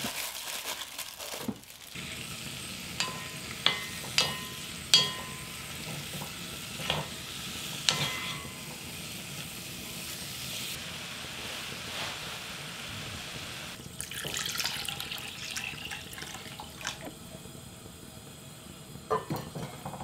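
Cubes of beef brisket sizzling as they are stir-fried with salt and minced garlic in a pot, with several sharp knocks of the stirring utensil against the pot.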